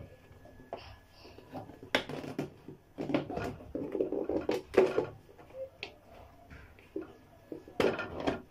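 Raw chicken drumsticks in a wet soy-sauce marinade shaken inside a closed plastic food container: irregular knocks and wet thuds against the plastic, busiest about three to five seconds in, with another sharp knock near the end.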